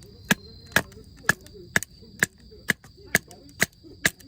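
Sharp, evenly spaced knocks, about two a second, over a steady high cricket trill.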